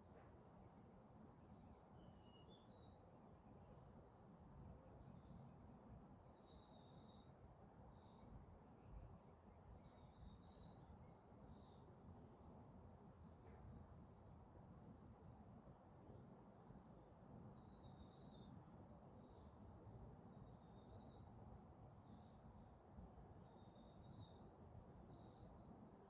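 Faint outdoor birdsong: many small birds chirping and twittering in quick high notes, with a short level whistled note repeated every three seconds or so, over a low steady rumble.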